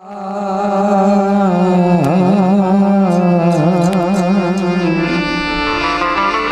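Indian devotional folk music fading in at the start: one long held melodic note that wavers in quick ornamental turns, with a few light strikes, then moves to a new steady note about five seconds in.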